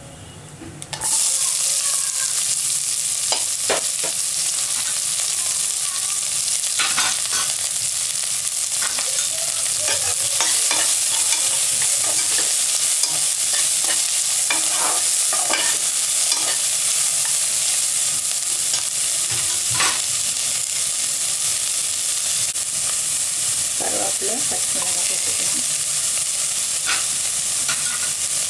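Chopped onions dropped into hot oil in a pressure cooker, sizzling loudly all at once about a second in, then frying steadily while a slotted spatula scrapes and stirs them against the bottom of the pot in short strokes.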